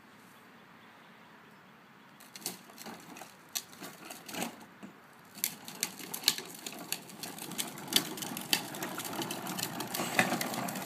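Hard plastic wheels of a Little Tikes Cozy Coupe ride-on toy car rolling over rough asphalt, a rattling clatter of clicks and ticks that starts about two seconds in and grows louder as the car picks up speed.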